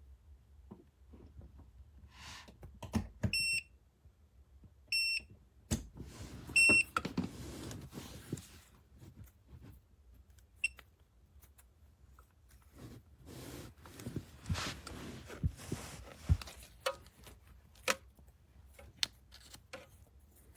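Electric space heater's control panel beeping: three short high beeps about a second and a half apart, then a faint fourth, among knocks and rustling from the heater and its cord being handled.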